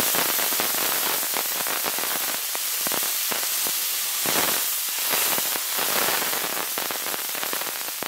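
Water splashed onto a very hot iron tawa, sizzling and crackling loudly as it boils off in steam; the crackle thins a little toward the end. This is the tawa being readied with water, as for dosa, before the batter goes on.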